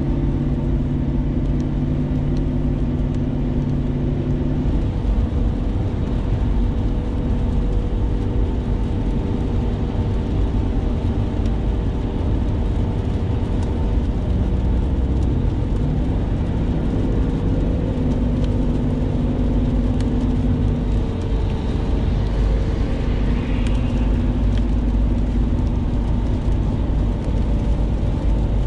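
Steady road noise inside a moving car in heavy rain: tyres on wet pavement over a low, even rumble.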